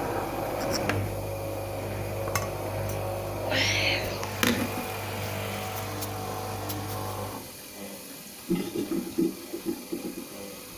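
LG WD-80155NUP front-loading washing machine running with a steady hum that cuts off suddenly about seven seconds in, followed by a few irregular low knocks and rumbles.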